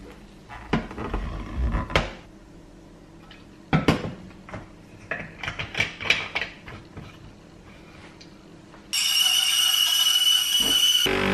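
Knocks and clicks of kitchen utensils and a plastic bottle cap handled on a stainless steel counter, then about nine seconds in a Sunbeam espresso machine's steam wand starts hissing loudly with a whistling tone, a steel milk jug held under it.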